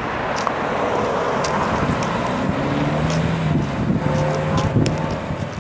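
A car driving past on the street: a swell of tyre and road noise, then a low steady engine hum through the second half.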